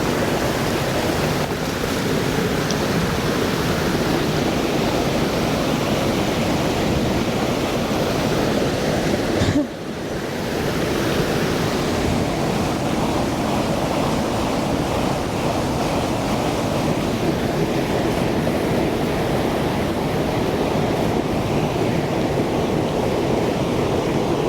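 Steady rushing noise of flowing water, with a brief dip just before ten seconds in.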